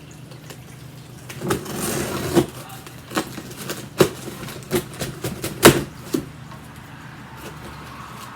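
A cardboard shipping box being handled: scattered knocks and clicks with a short rustle of cardboard, the sharpest knock a little past the middle, over a steady low hum.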